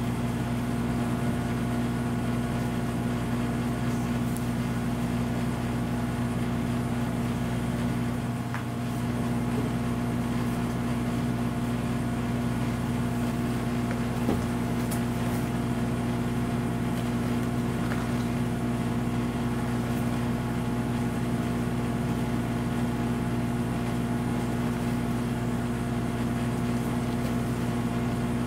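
A steady low mechanical hum made of several fixed tones, unchanging throughout, with a few faint clicks over it.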